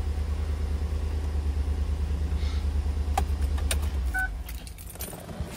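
Chevrolet Tahoe engine idling with a steady low rumble, running with its newly replaced oil pressure switch, then shut off about four seconds in. A short beep sounds as it stops, with a few light clicks around it.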